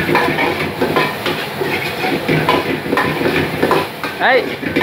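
Metal ladle scraping and knocking against a steel wok as fried rice is stir-fried and tossed over a gas flame, with the rice sizzling. A short shout about four seconds in.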